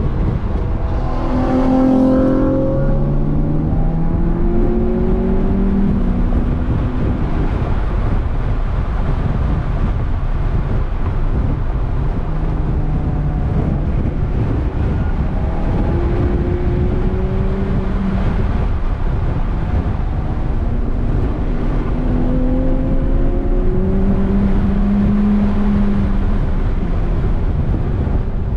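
A 2006 Volkswagen GTI (MK5) turbocharged 2.0-litre four-cylinder with a Stage 2 tune, 3-inch catless downpipe and Magnaflow cat-back exhaust, heard from inside the cabin as it is driven hard on track. The engine note climbs and drops several times as it accelerates and shifts, over steady road and wind noise.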